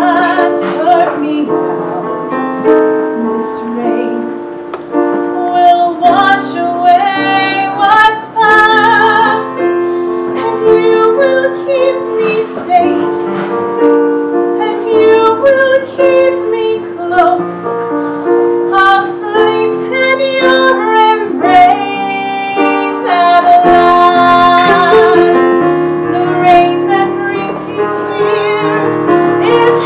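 A woman singing a ballad with live piano accompaniment.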